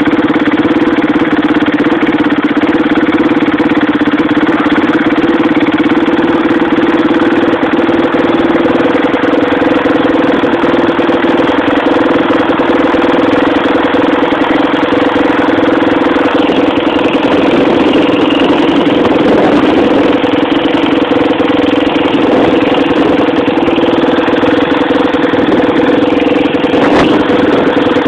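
An engine idling steadily at one unchanging pitch, with a single short knock near the end.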